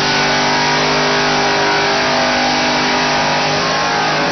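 A V8 drag car's engine held at steady high revs during a burnout, its rear tyres spinning against the track.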